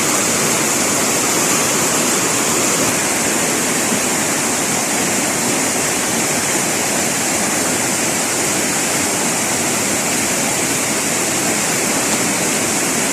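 Fast-flowing river water rushing, a loud steady noise that holds evenly throughout.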